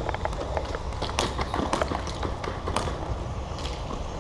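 Irregular sharp clicks and cracks of airsoft guns firing and BBs hitting surfaces, over a steady low rumble.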